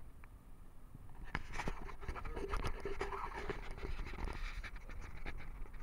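Close handling noise: scratching and rustling with many small clicks, as hands move fish fillets about on grass. It is loudest through the middle.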